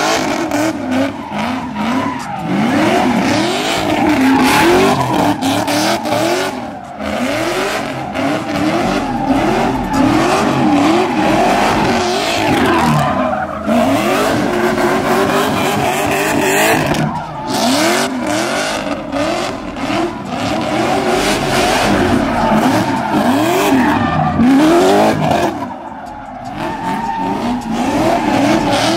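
A drifting car's engine revving hard, its pitch climbing and falling over and over as the car slides, over a steady loud squeal of tyres spinning and skidding on the tarmac.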